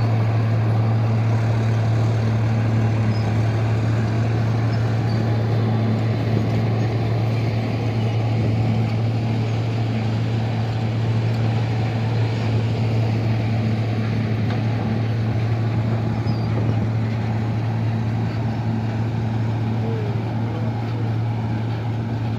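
Excavator's diesel engine running at a steady speed, a constant low drone with no change in pitch.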